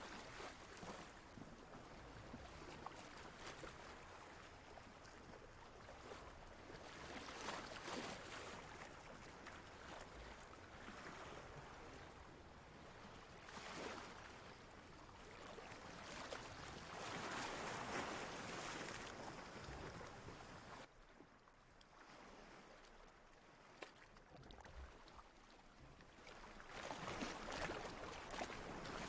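Faint ocean waves washing in and drawing back: a soft rushing that swells and fades every few seconds, with a quieter lull about three-quarters of the way through.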